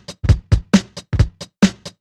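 Electronic music: a fast drum-machine beat of sharp hits, about five a second, each with a deep kick under it.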